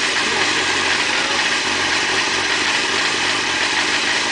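2002 Suzuki GSX-R600's inline-four engine idling steadily with a rattle, a noise at idle whose cause the owner is asking a mechanic to identify.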